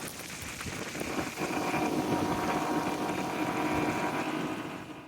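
Motorboat engine running while the boat is underway, mixed with wind and water noise; it grows louder about a second and a half in.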